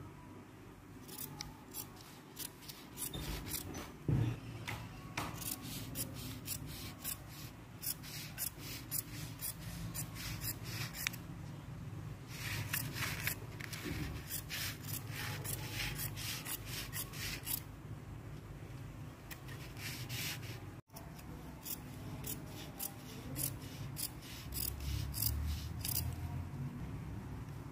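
Large dressmaking shears cutting plain woven fabric along a pinned paper pattern, in runs of quick repeated snips with short pauses between them.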